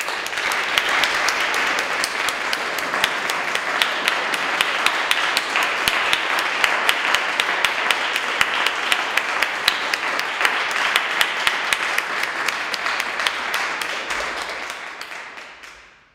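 Audience applauding: many hands clapping. The applause starts at once, holds steady for about fourteen seconds, then dies away near the end.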